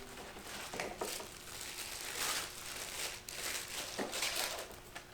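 Plastic packaging crinkling and rustling in irregular swells as a cordless tool is unwrapped from a combo kit box.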